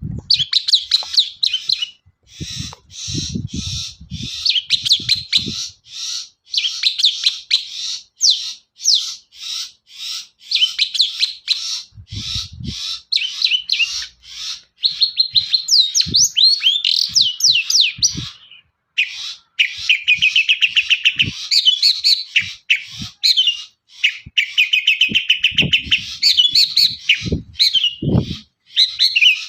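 Long-tailed shrike (cendet) singing a long, rapid, chattering song of quick, varied high notes, with stretches of fast trilling; the song includes mimicry of other birds. A few soft low thumps come now and then.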